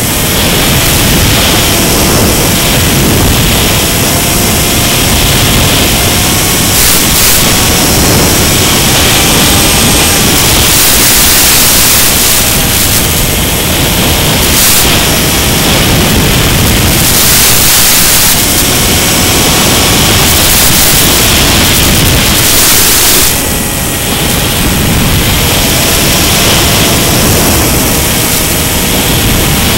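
Loud steady hiss on the audio of a Mini Skywalker FPV plane's in-flight recording, with faint wavering whines underneath.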